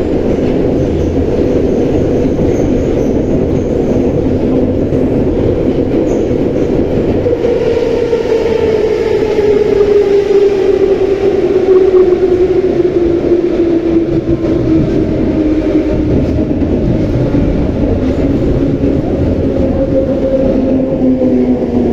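Ride noise inside an 81-717/714 metro car: a steady heavy rumble of the running train. From about eight seconds in, a motor whine rises above it and falls steadily in pitch as the train slows.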